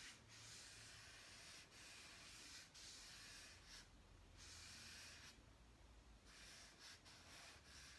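Faint, hissy strokes of chalk rubbed across paper for shading, repeated several times, each stroke lasting about a second.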